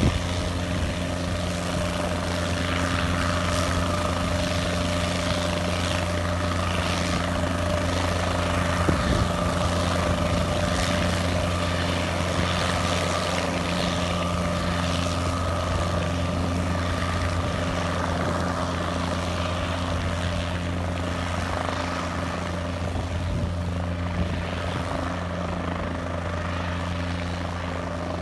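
Guimbal Cabri G2 light helicopter, with its four-cylinder Lycoming piston engine, lifting off and hovering low before moving away. It makes a steady rotor drone with a high whine over it, which grows a little fainter near the end.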